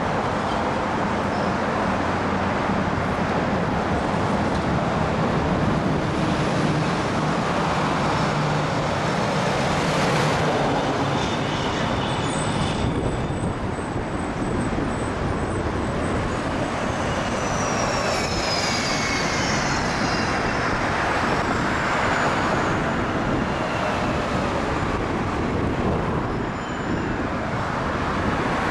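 Steady road traffic noise: vehicles driving past on a city road, with a low engine hum in the first half and a few faint falling whines about two-thirds of the way through.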